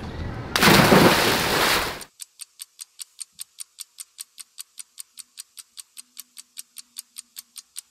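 A loud rush of noise for about a second and a half, cut off abruptly, then steady, crisp ticking at about five ticks a second.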